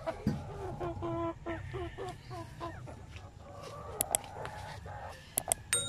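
Domestic hens clucking: a quick run of short, pitched clucks in the first few seconds. A few sharp clicks and a brief ring come near the end.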